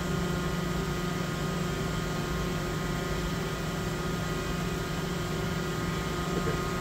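DMG Mori NTX 1000 CNC machine running with a steady mechanical hum and several steady whining tones.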